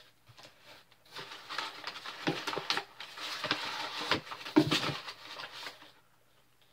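Packaging rustling and crinkling with many small sharp clicks as hands dig through a shipping box and pull out an item. It stops abruptly near the end.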